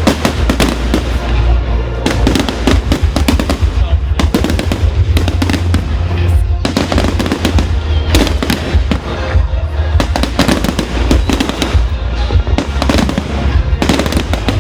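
Fireworks display going off in a rapid, continuous barrage of bangs and crackles, with a steady low rumble beneath.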